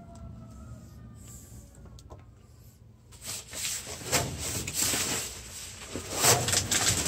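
Plastic trash bags and dumpster contents rustling and crinkling as a hand rummages through them, in loud bursts from about three seconds in.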